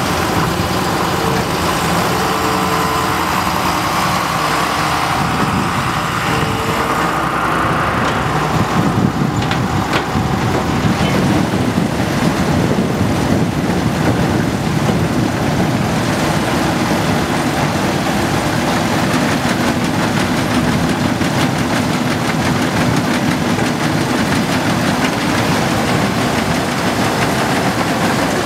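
A John Deere tractor's diesel engine and a trailed Grimme 150-60 harvester running steadily, with the harvester's conveyors and webs clattering at work on beetroot. A short whine recurs a few times in the first several seconds, while the harvester's bunker empties into a trailer. After that the rig is lifting beetroot on the move.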